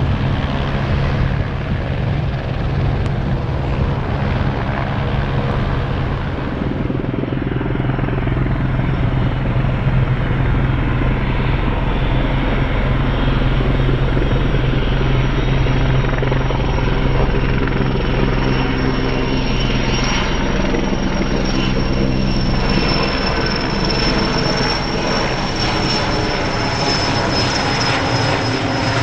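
Erickson S-64 Air-Crane heavy-lift firefighting helicopter flying, with a steady rotor thrum and turbine noise. A thin high turbine whine comes in about seven seconds in and holds to the end.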